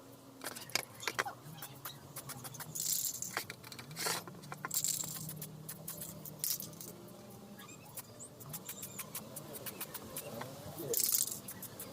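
Aerosol spray-paint can being sprayed in short hissing bursts, with many sharp clicks and rattling in between.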